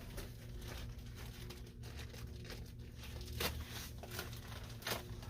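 Packaging crinkling and rustling as fabric is unpacked from a shipping box, with a few sharper crackles about three and a half seconds in and near the end.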